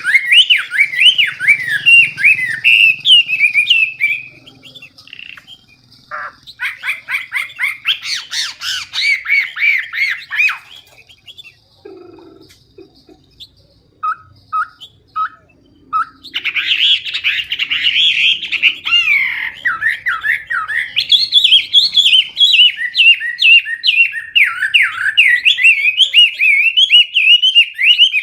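Chinese hwamei singing loud, clear, rapid whistled phrases. The song breaks off about four seconds in, returns as a quick run of notes, and drops to a few short single notes. From a little past the middle it runs on without a break.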